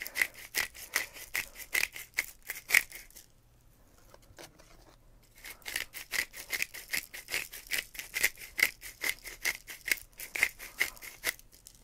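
Black pepper being ground from a handheld grinder bottle: a quick, even run of gritty clicks as the top is twisted. It stops for a couple of seconds about three seconds in, then resumes.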